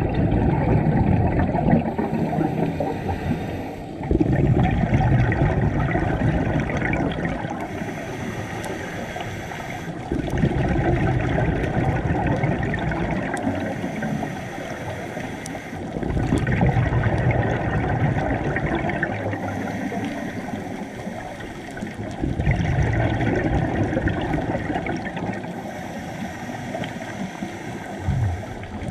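Scuba diver's breathing through a regulator, heard underwater: a regular cycle of about six seconds, a quieter inhale with a faint high hiss, then a loud bubbling rush of exhaled air, about five breaths in all.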